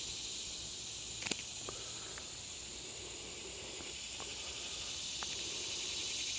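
Steady high chorus of insects, with one sharp click about a second in and a few faint ticks.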